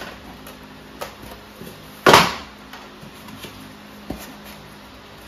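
Hands fitting yellow plastic edge profiles onto poly beehive box panels and setting the pieces down on an aluminium work platform: a few light knocks and one louder clack about two seconds in.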